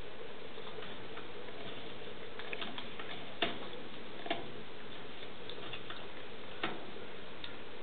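African grey parrot eating passionfruit pulp, its beak making scattered small clicks and crunches on the seeds and rind, the sharpest about three and a half seconds in, over a steady faint hiss.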